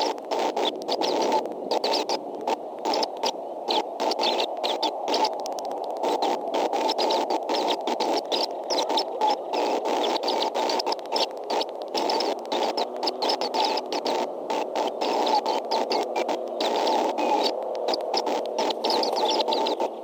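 Constant crackling noise like static on the nest-cam microphone, a dense hiss with rapid flickering breaks.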